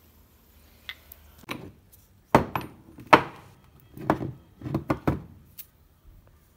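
Cast aluminium ingots knocking against each other and a tabletop as they are handled and set down: a series of dull clacks, a few faint taps first and the loudest knocks through the middle.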